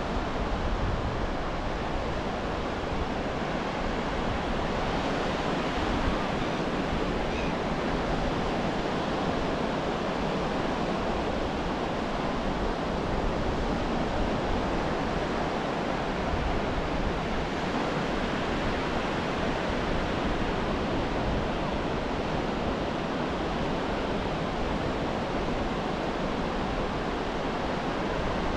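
Ocean surf washing onto a beach: a steady, unbroken rush of breaking waves.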